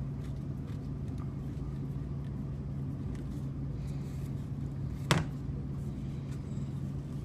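Steady low hum, with a single sharp knock about five seconds in as bar clamps are handled and tightened on a glued-up wooden frame.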